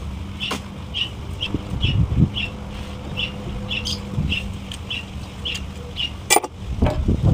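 A small bird chirping over and over in short, high notes, about two or three a second, over a steady low hum. A sharp knock comes about six seconds in, followed by a few more knocks near the end, typical of tools or engine parts being handled during the teardown.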